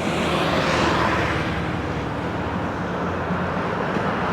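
Road traffic: a passing vehicle's tyre and engine noise swells about a second in and then fades, over a steady low engine hum.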